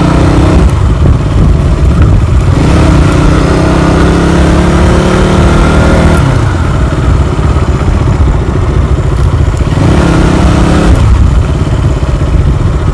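KTM motorcycle engine running under way, its note climbing for a few seconds and then falling away about six seconds in as the throttle is eased, with another short rise near the end.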